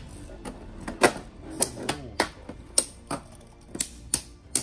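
Brave Valkyrie and Infinite Achilles Beyblade Burst tops spinning in a clear plastic stadium and colliding, with sharp plastic clacks at about two a second in an irregular rhythm.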